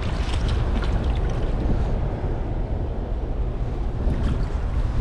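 Wind rumbling steadily on the microphone, with light splashes and drips of water as a landing net is lifted from the lake into the boat, mostly in the first second or two.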